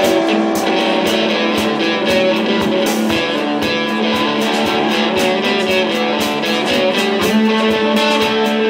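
Live rock band playing: two electric guitars holding ringing chords and notes over drums keeping a steady beat with cymbal hits.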